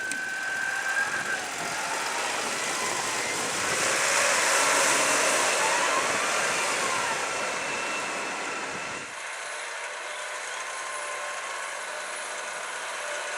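Case IH Puma 200 CVX tractor running under load as it pulls a deep plough, growing louder to a peak about four seconds in and then easing off. About nine seconds in the sound changes abruptly to a quieter, steadier engine note.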